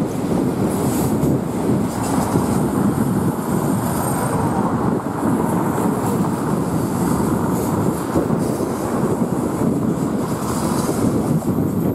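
Freight train of covered hoppers and tank cars rolling past at track speed: a steady rumble of steel wheels on rail with light clickety-clack, and faint brief high wheel squeals.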